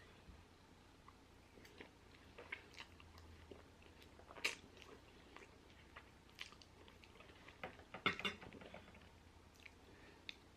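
A person biting and chewing sauced French fries: scattered soft wet mouth clicks and crunches, the loudest about four and a half and eight seconds in.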